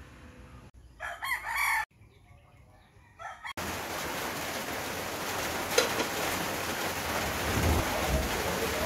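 A rooster crows once, about a second in. From about three and a half seconds in comes a steady hiss with a single clink near the six-second mark.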